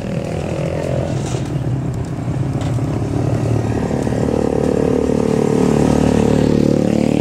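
Motorcycle engine running, growing louder over the last few seconds.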